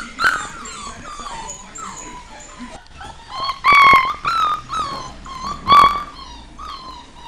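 Several beagles whimpering and yelping in short, overlapping, falling cries, with two louder cries about four and six seconds in.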